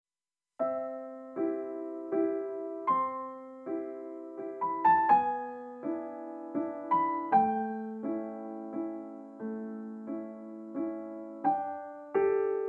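Background piano music: gentle notes and chords struck one or two times a second, each ringing and fading, starting about half a second in.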